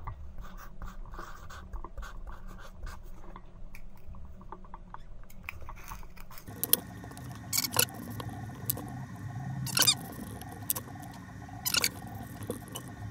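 Pen writing on small paper labels on a desk: faint scratching with many light taps and clicks. About halfway through, a steady hum with held tones comes in, with a few sharper, louder clicks.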